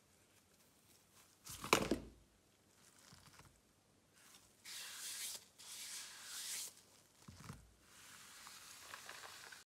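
Handling noises on a rubber work mat: a sharp knock with a low thud about two seconds in, then stretches of rustling and scraping from nitrile-gloved hands on the mat, with a softer thump in the middle of them.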